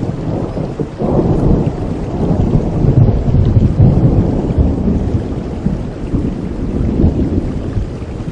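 A thunderstorm: a long roll of thunder over steady rain, swelling suddenly about a second in, rumbling loudest around the middle and slowly dying away.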